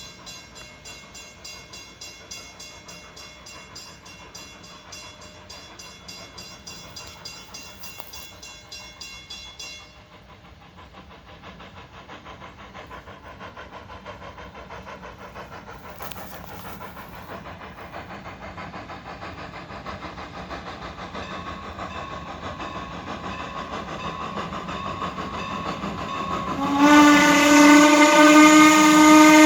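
Norfolk & Western 475, a 1906 Baldwin 4-8-0 steam locomotive, working along with a steady rhythmic exhaust that grows louder as it approaches, then a long, loud blast of its steam whistle near the end.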